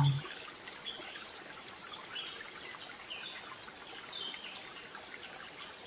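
Steady trickle of running water, like a small stream, with birds chirping faintly now and then.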